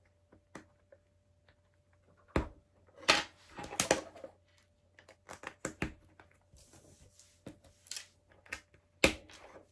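Plastic LEGO bricks being handled and pressed together: irregular sharp clicks and short rattles, with a few louder snaps about two and a half to four seconds in and again near the end.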